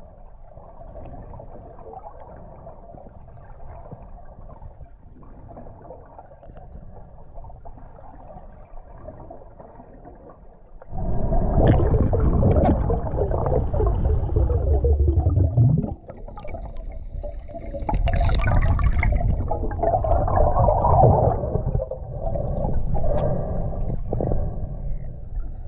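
Muffled underwater sound at a diver's camera: a faint hiss at first, then from about 11 s in loud, low bubbling rushes of the diver's exhaled air, coming in long surges with short breaks.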